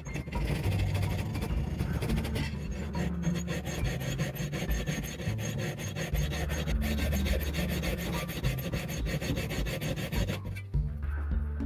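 Hacksaw blade cutting through a block of stainless steel held in a vise, in rasping back-and-forth strokes that stop shortly before the end. Background music plays underneath.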